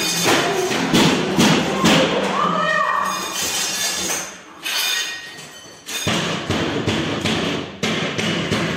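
Repeated heavy thumps and knocks, many in quick succession, with a rising-then-falling pitched sound a few seconds in.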